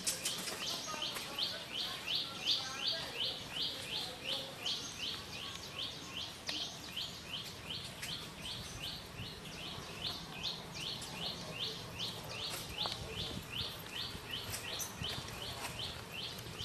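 Steady, rhythmic high-pitched chirping, about three evenly spaced chirps a second.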